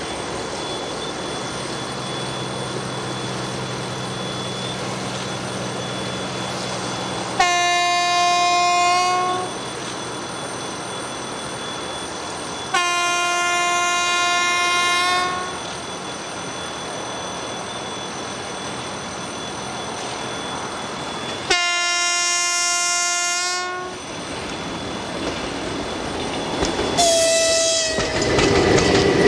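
EP1M electric locomotive's horn sounding four times as it approaches: three long blasts and a shorter last one that drops slightly in pitch as the locomotive passes. Near the end the passenger coaches clatter past on the rails.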